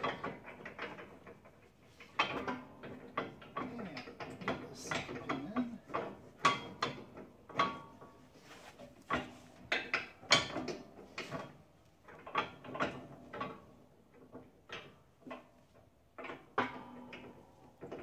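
Steel pins and plow-mount hardware being handled and fitted: irregular metal clicks, clanks and short scrapes, some ringing briefly.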